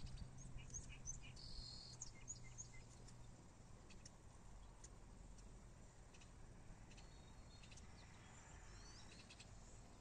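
Faint outdoor evening ambience: small birds give brief high chirps, scattered in the first few seconds and again near the end, over a low steady hum.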